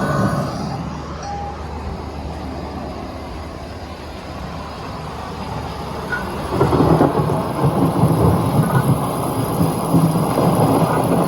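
Ambient soundscape from the Tay Whale sculpture's sound installation: a steady low noise with faint tones in it. It grows louder and more uneven, with fluttering swells, from about six and a half seconds in.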